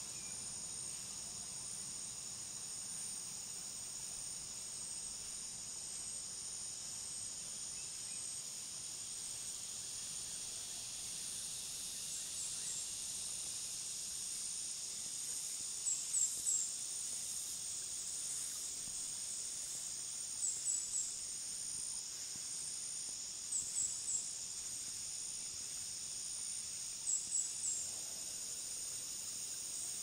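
Steady high-pitched chorus of crickets and cicadas. From about twelve seconds in, short high chirps in quick groups of two or three come back every three to four seconds and are the loudest sounds.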